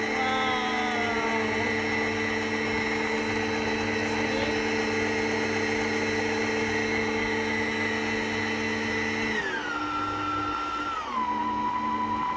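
Black+Decker SM1000 stand mixer's motor running with a steady, low-noise whine. Near the end its pitch steps down twice as the speed is turned lower.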